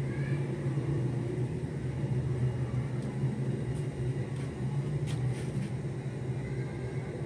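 A steady low hum, with a few faint ticks about four to five seconds in.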